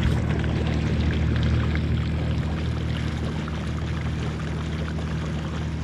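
A 40 hp outboard motor running steadily at trolling speed, a low even hum, with water rushing and splashing along the hull.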